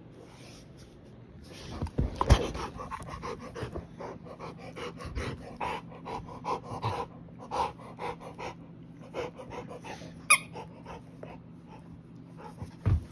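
Rottweiler panting quickly with a rubber ball toy in its mouth, starting about two seconds in. A thump comes as the panting starts, and a brief sharp squeak comes near the end.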